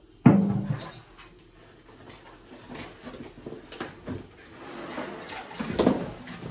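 Packaging being handled as a halogen air fryer is taken out of its cardboard box: a sharp knock just after the start, then scraping and rustling of cardboard and packing, and another louder knock near the end as the fryer is lifted out.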